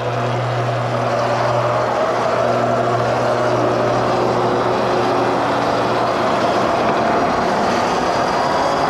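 Electric bike's motor whining and rising steadily in pitch as it accelerates, over a constant rush of wind and road noise.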